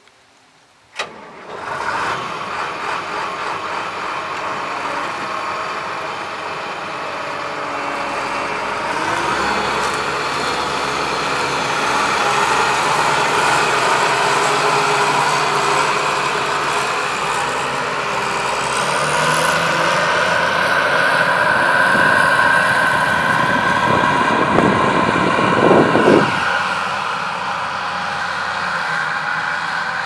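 New Holland combine harvester's diesel engine starting about a second in after near silence, then running steadily as the machine drives off, its engine and machinery noise swelling a little louder. A brief louder rattle a few seconds before the end.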